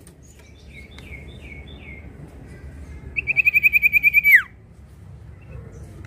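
Common iora (sirtu) singing: a run of about six short falling notes, then about three seconds in a loud, rapid trill of a dozen notes that ends in a long downward slide.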